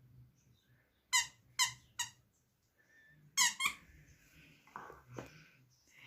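Plush teddy bear's squeaker squeaking as a dog bites on it: three short squeaks about a second in, then two more in quick succession a little later. A couple of soft knocks follow near the end.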